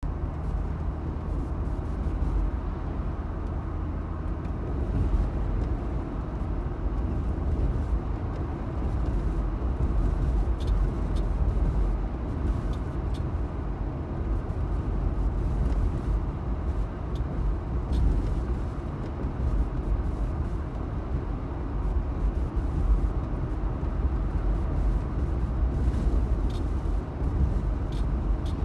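Cabin noise of a 2018 Jeep Wrangler JL driving over a slightly bumpy road: a steady road and drivetrain rumble with sharp clicks at irregular intervals, some seconds apart. The owner hears the clicking from the driver's left side and has not found its cause.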